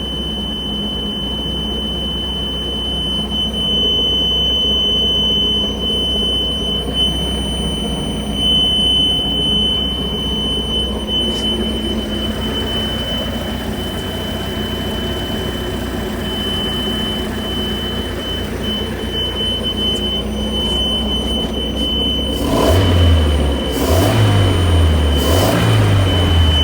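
Mercruiser 3.0 four-cylinder boat engine running, with the dash warning beeper sounding a steady high-pitched tone over it. The beeper normally sounds only at key-on before starting, and here it keeps sounding with the engine running. The engine is revved three times near the end.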